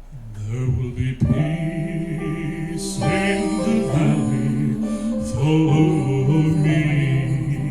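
A vocal group singing a gospel song in harmony, several voices holding long notes together.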